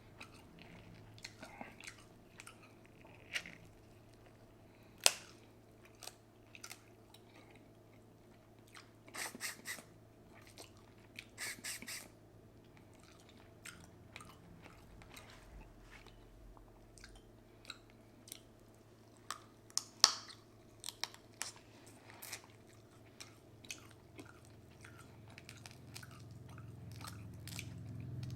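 Close-miked eating: wet chewing and lip smacks of a seafood boil ramen, with sharp clicks and two short louder bursts of rapid strokes about nine and eleven seconds in. A low hum grows near the end.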